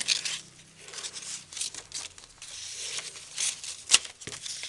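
Paper pages and cards of a handmade junk journal rustling and crinkling as they are handled and turned, with one sharp tap about four seconds in.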